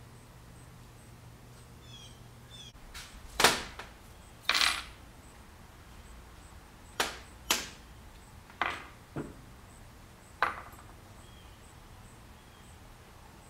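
Small metal hardware pieces clinking as they are picked up and set down on the workbench: about seven sharp clinks with a short ring, spread over several seconds, some in quick pairs.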